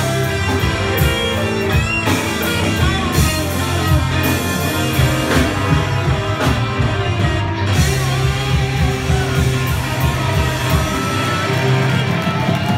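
Live psychedelic rock band playing loudly, with electric guitars, rapid drum hits and voices, backed by strings and horns.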